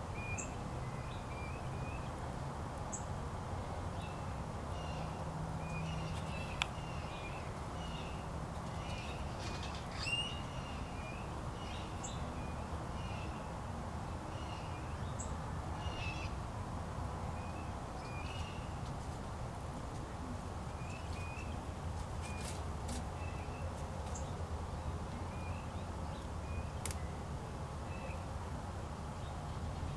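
Birds chirping, short high calls repeating every second or two, over a steady low background hum.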